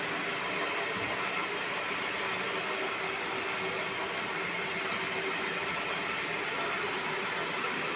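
A steady mechanical drone with a low hum, from a running machine. A few faint clicks come about five seconds in.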